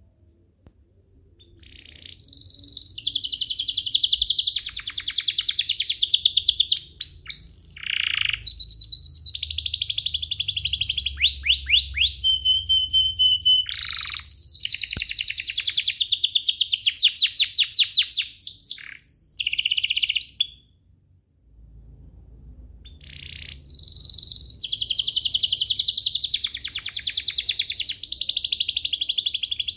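Domestic canary singing long, high-pitched phrases of fast trills and rolls with short gaps between them. The song starts about a second and a half in, stops for about a second near two-thirds through, then resumes.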